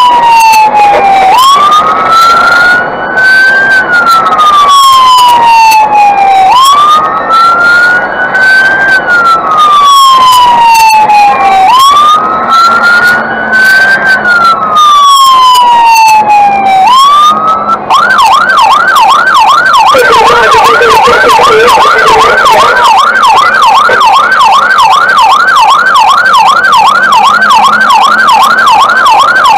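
Fire engine's siren sounding on an emergency run. It first wails in slow cycles, each rising quickly and falling away over about five seconds. A little past halfway it switches to a fast yelp of about three rises a second.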